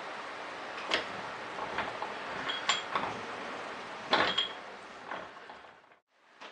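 A lathe tool bit being run in and out of a metal pulley's bore to cut a keyway by hand: scraping cutting strokes with sharp metallic clicks, the strongest about 1, 2.7 and 4 seconds in. The sound fades and cuts off near the end.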